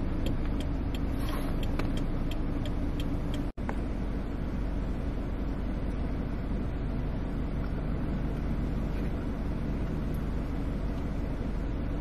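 Steady low rumble of a pulled-over car's engine idling. Light, even ticking runs about three times a second for the first three seconds, and the sound drops out for an instant about three and a half seconds in.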